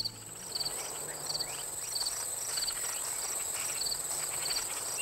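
Crickets chirping: a short pulsed chirp repeats about every two-thirds of a second over a steady, high-pitched insect trill.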